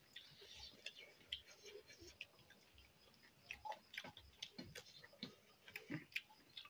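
Faint eating sounds: irregular soft clicks and smacks of chewing and lips, with fingers working rice on steel plates, growing more frequent in the second half.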